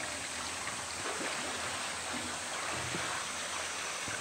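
Steady rush of water, with light splashing and sloshing from a polar bear swimming along the edge of its pool.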